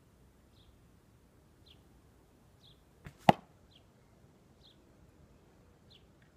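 An arrow shot from a hickory bow: a faint click of the release, then about a quarter second later a single sharp smack as the arrow strikes the 3D deer target. A bird chirps in short falling notes about once a second.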